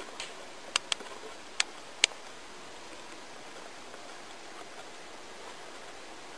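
Four short, sharp clicks within the first two seconds, over a steady low hiss.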